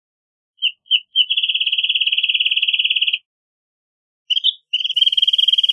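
Wrentit singing twice. Each song is a couple of short notes followed by a rapid, even trill: the first trill lasts about two seconds, and the second song begins about four seconds in.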